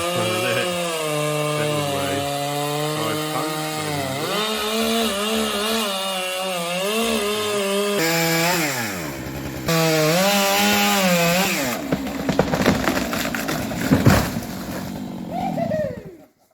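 Two-stroke chainsaw cutting into a large tree stump, its engine rising and falling in pitch as it bites into the wood and dropping low once before revving up again. Later the sound turns rough and crackling with several sharp knocks, loudest a couple of seconds before the end, then stops abruptly.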